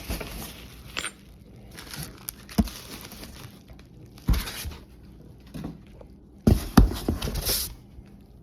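Unboxing handling: packaging rustling and crinkling, with several sharp knocks and clicks as parts are picked up and set down.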